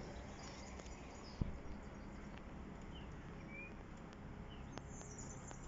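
Quiet outdoor ambience with a few faint, short bird chirps about halfway through, and a single knock about a second and a half in.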